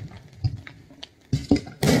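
Aerial fireworks going off: a few small pops and crackles, then several sharp booms close together near the end. Music plays underneath.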